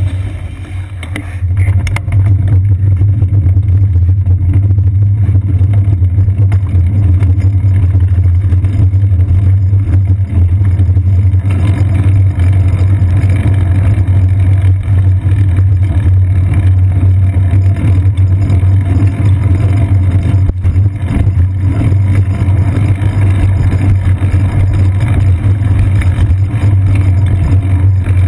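Steady, loud low rumble of wind and road vibration on a seat-post-mounted GoPro Hero 2 as the bicycle rides through city traffic. It eases briefly about a second in, then returns.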